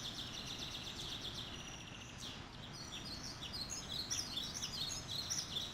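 Recorded forest ambience sound effect: many small birds chirping and trilling over a soft background hiss, the chirps growing busier about four seconds in.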